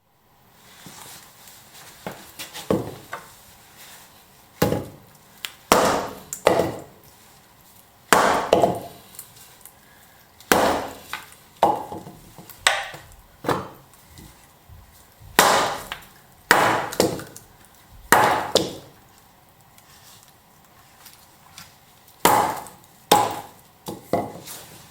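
Green wood being chopped and split with a hand tool: a long run of sharp, irregular strikes, roughly one a second, each with a short ringing tail, with a brief pause near the end before a few more blows.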